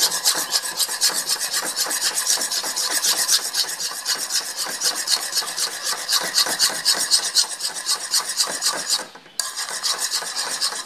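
A spoon scraping rapidly round a metal kadai, several strokes a second, as butter is stirred melting over a low flame to make ghee. The scraping breaks off briefly about nine seconds in, then resumes.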